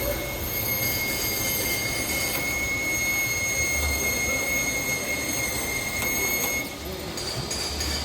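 Peugeot 206 1.4's driveshaft bearing letting out a steady high-pitched squeal over a low rumble, which cuts off about seven seconds in. The squeal is the sign of a worn driveshaft bearing.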